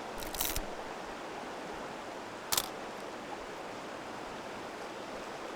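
Steady rush of a flowing stream, broken twice by a short burst of sharp rattling clicks, the first just after the start and the second, louder, about halfway through.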